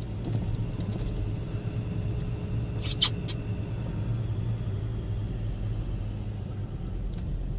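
Steady low hum of a car's engine and running gear, with two short clicks about three seconds in.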